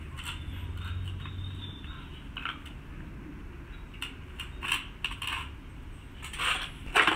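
Two Doberman puppies eating from stainless steel bowls: irregular chewing crunches and clinks of muzzles and food against the metal bowls.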